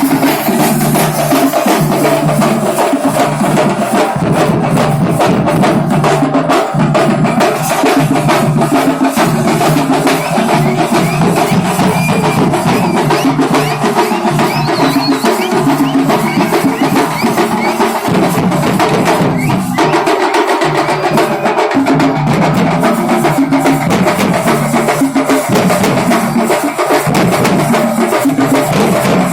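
Loud, fast folk drumming in a kuthu beat, with dense sharp strikes over a steady pulse and a pitched layer beneath, briefly thinning about two-thirds of the way through.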